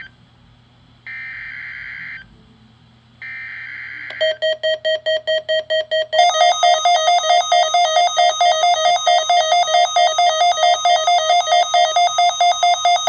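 The last two bursts of a NOAA Weather Radio SAME digital header, each a harsh buzzing data burst about a second long, followed by a pulsing electronic weather-alert alarm beeping about four times a second. The alarm gets much louder and brighter about six seconds in.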